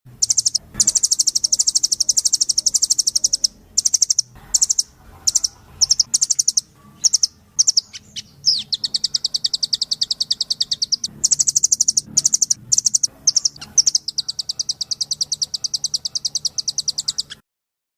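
Velvet-fronted nuthatch calling in fast, high-pitched trills of rapid chip notes, broken into short bursts midway and run together into longer trills elsewhere. The calls stop abruptly near the end.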